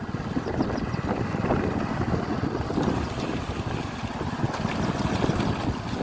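Wind buffeting the microphone: an uneven, fluttering rumble with no steady engine note.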